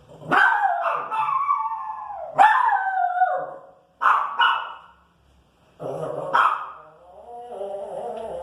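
Pinscher dog barking and howling in about five drawn-out calls, each starting sharply and falling in pitch, irritated by noise from the street.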